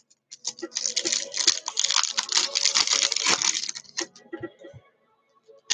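Trading-card pack wrappers and packaging crinkling and crunching as they are handled and crumpled, for about three seconds, then a few light clicks and taps.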